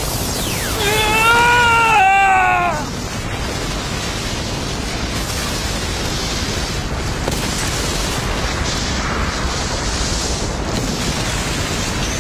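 Cartoon explosion effect: a steady rushing rumble of a huge blast and collapsing wall. About one to three seconds in, a high wavering cry in two parts rises over it, the loudest moment.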